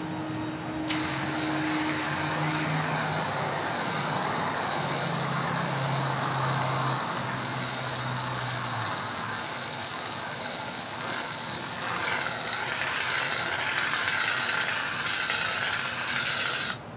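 An aerosol can of whipped cream spraying onto a person's head: a continuous hiss that starts abruptly about a second in, grows louder in the last few seconds, and cuts off suddenly just before the end.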